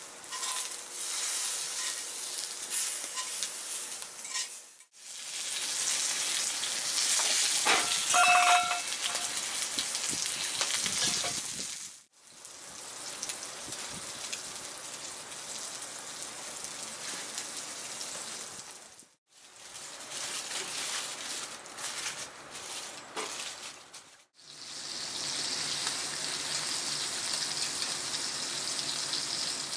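Steak sizzling and frying in a hot forged-iron Turk frying pan over a campfire, heard in several separate stretches broken by brief silent gaps. About eight seconds in there are a few knocks and a short ringing tone.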